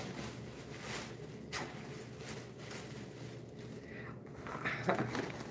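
Handling noise from a leather handbag being picked up and opened: rustling, with a few sharp clicks about one and a half seconds in and near the end.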